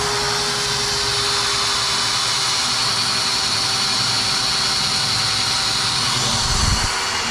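A steady mechanical whir with a constant hum, running without change; a low bump about six and a half seconds in.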